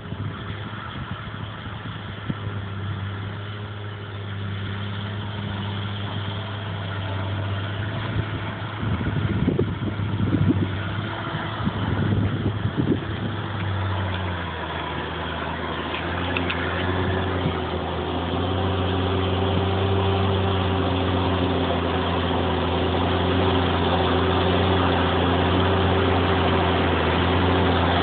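Fendt 716 tractor's six-cylinder diesel engine working steadily under load while pulling a cultivator through heavy soil. It grows louder as the tractor draws near, and its note changes about halfway through.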